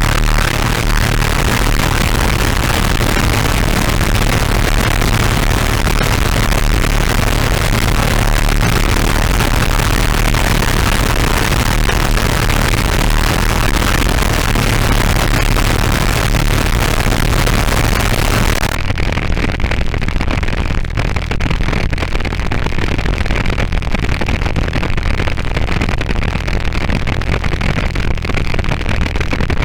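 Synth run through the Snowstorm white noise distortion pedal: a dense, harsh wall of distorted noise with a heavy, steady bass hum underneath. About two-thirds of the way through it changes suddenly, the hiss at the top cut away, into the pedal's white noise drone.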